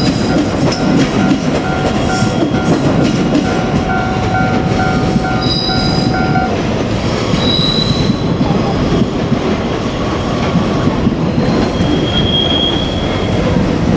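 JR Kyushu 817 series electric train, two units coupled, running past with a loud, steady rumble of wheels on rail, broken by several brief high-pitched wheel squeals.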